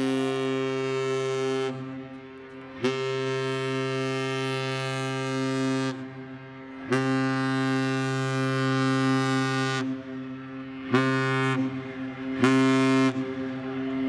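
Ship's horn of the lake freighter Arthur M. Anderson sounding a Master Salute: three long blasts of about three seconds each, then two short blasts near the end, a deep tone rich in overtones.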